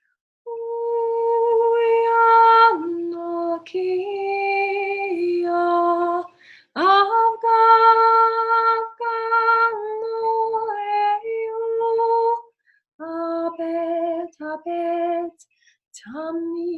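A woman singing unaccompanied in long held vocal tones, sacred toning in the style of light language. She steps between a few neighbouring pitches, with short pauses and a quick upward swoop about seven seconds in.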